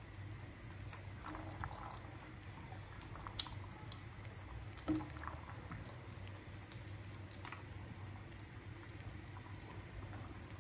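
A large stainless-steel pot of aşure (wheat, chickpeas and hazelnuts in liquid) being stirred with a plastic spoon: soft liquid stirring and scattered light clicks of spoon against pot, with a sharper knock about five seconds in, over a steady low hum.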